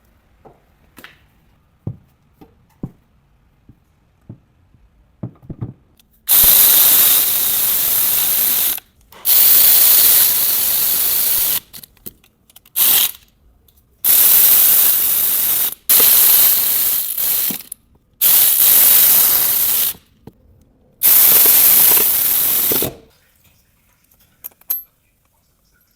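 Pneumatic wrench run in about seven bursts of one to two and a half seconds each, driving bolts during the transfer case fitting, after a few light clinks of hand tools.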